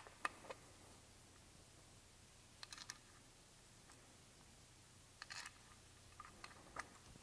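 Faint, sparse clicks and taps of a metal oil filter cover and its bolts being fitted by hand onto a Honda CRF250R engine case, coming in small clusters a couple of seconds apart.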